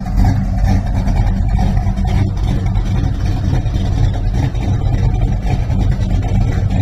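Pontiac V8 engine running at a steady idle, a loud, deep and slightly uneven rumble.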